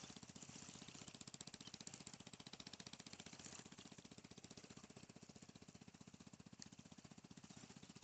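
Faint, distant fishing-boat engine running out on the water, a rapid, even chugging that drops slightly in level a little past halfway.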